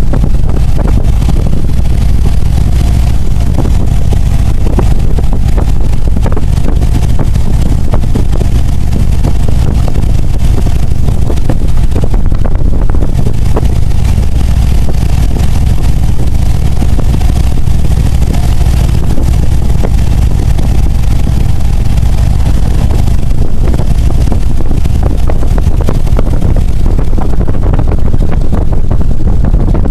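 Motorcycle riding along at steady speed: the engine runs under a loud, constant low rumble of wind buffeting the bike-mounted microphone.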